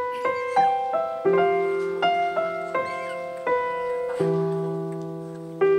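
Piano music: a slow melody of single notes that ring and fade, over low notes held underneath.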